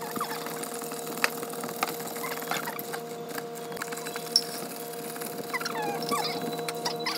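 Ice clicking and rattling in a clear plastic cup as an iced chocolate drink is stirred with a plastic straw, with a few short squeaks near the end, over a steady hum.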